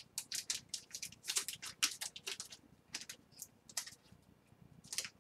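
Clear plastic card holders being handled: a quick, irregular run of small clicks and crinkles, thick for about four seconds and then sparse.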